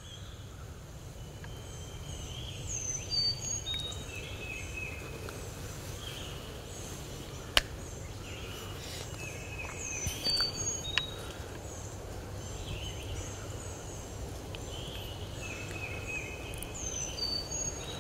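Songbirds singing, one phrase of high descending notes coming back roughly every seven seconds, over a steady low rumble. A single sharp click about seven and a half seconds in.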